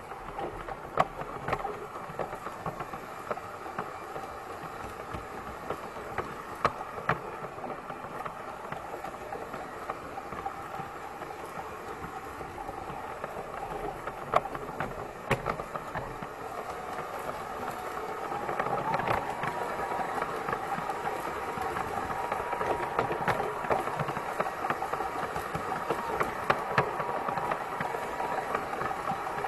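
Piko G-scale BR 80 model locomotive running on brass track: the electric drive's steady mechanical running noise, with scattered sharp clicks from the wheels on the track. About two-thirds of the way through the running gets louder and a steady whine sets in.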